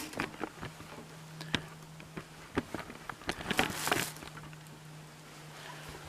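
Handling noise: scattered light clicks, knocks and cloth rustling, clustered in the first four seconds and then dying away, over a steady low hum.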